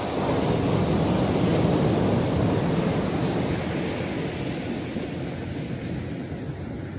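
Sea surf washing in with wind on the microphone: a rushing surge that swells right away, is loudest a second or two in, then slowly eases off.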